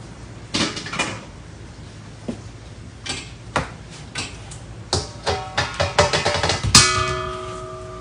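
Knocks and light clatters of metal kitchenware and a metal stand being handled, quickening into a run of rattles. Near the end, a stainless steel bowl hits the floor hard and rings on with a few steady tones that die away slowly.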